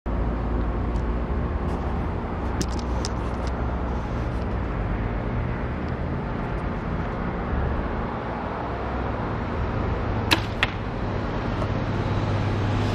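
A compound bow shot and the arrow striking a bag target: two sharp cracks about a third of a second apart, the loudest sounds, a few seconds before the end. A few light clicks come earlier, over a steady low background rumble.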